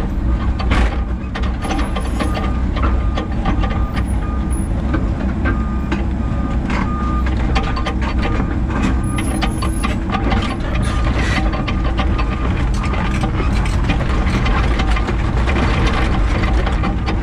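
Excavator heard from inside its cab while travelling on steel tracks over gravel: the diesel engine runs steadily under load, the travel alarm beeps over and over, and the tracks clank and crunch.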